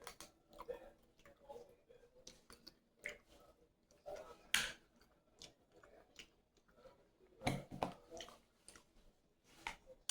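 Close-miked chewing and eating: irregular wet smacks and clicks of a mouth working on seafood-boil food, with louder smacks about four and a half and seven and a half seconds in.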